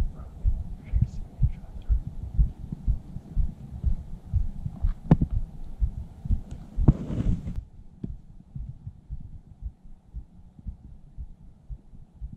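Low, irregular thuds of footsteps and handling on a handheld camera's microphone while walking, about two or three a second, with a sharp click about five seconds in and a short rustle near seven seconds. The sound turns duller after about seven and a half seconds.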